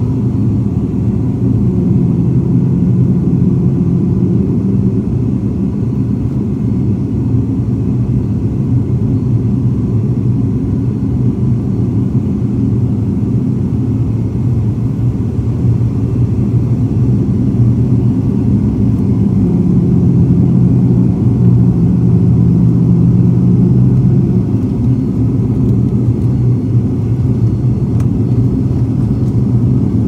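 Steady, loud low drone of an ATR turboprop airliner's engines and propellers heard from inside the passenger cabin on final approach, swelling slightly about two-thirds of the way through.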